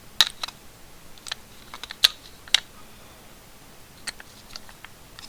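Irregular small clicks and taps of alkaline batteries being handled and fitted into a plastic battery compartment; the sharpest click comes about two seconds in.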